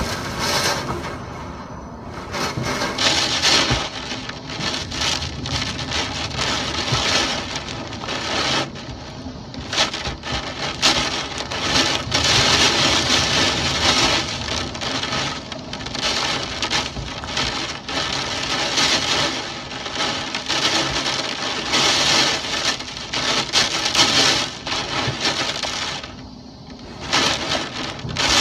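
Typhoon storm noise: heavy rain and wind that swell and ease in gusts every second or two.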